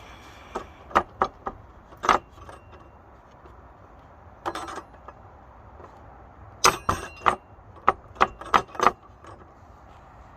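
Hand-forged iron gate lock being worked: a series of sharp metallic clicks and clanks in small groups, the densest run in the second half.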